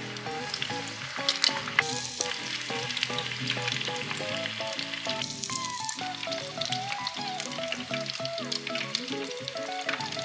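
Hot oil sizzling and crackling in a pot as batter-coated chicken pieces deep-fry, with dense, steady popping.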